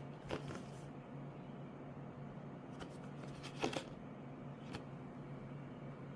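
A few short rustles and clicks of handling, the loudest cluster about three and a half seconds in, over a steady low hum.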